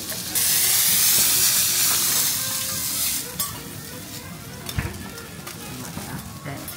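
Food sizzling on a hot cooking surface. A loud burst of sizzling starts suddenly just under half a second in and eases off after about three seconds, then settles into a quieter sizzle with scattered light clicks.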